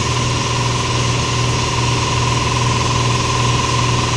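A steady mechanical drone: a low hum with a thin whine held on one note above it, unchanging throughout.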